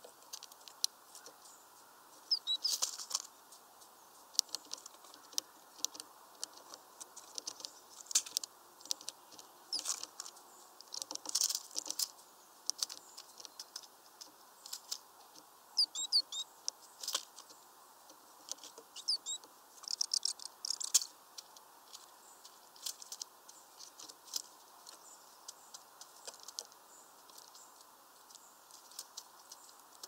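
Great tit pecking at peanuts in a mesh feeder bag: irregular clusters of sharp taps and clicks, with a few short, high bird chirps in the middle.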